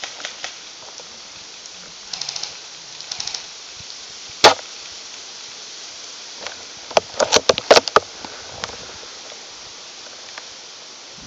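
Scattered airsoft shots: two short rattling bursts in the first few seconds, one loud sharp crack about four and a half seconds in, then a quick run of snaps around seven to eight seconds.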